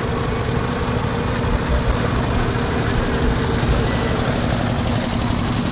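An engine running steadily, an even drone with a constant pitch, under a continuous rush of wind and shallow water.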